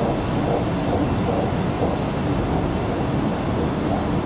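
Steady low rumble of an X'trapolis 100 electric multiple unit running along the track, heard from inside the carriage.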